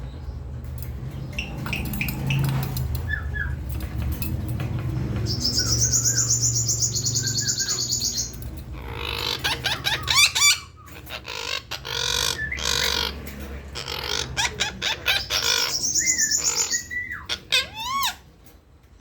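A young red-breasted parakeet calling: two long, harsh, buzzy screeches, one about five seconds in and one about fifteen seconds in. Between them come wavering squawks and chatter, and short chirps and whistles follow near the end. The bird is being teased and is agitated.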